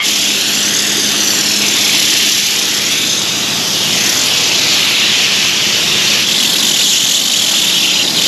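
Gravity-feed compressed-air spray gun spraying a coating: a loud, steady hiss of air and atomised material with no break.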